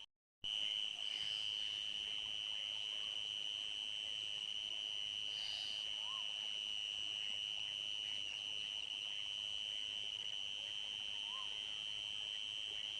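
Crickets trilling in a steady, continuous high chorus, which cuts out to silence for a split second just after the start. Two faint short calls, rising and falling, sound beneath it several seconds apart.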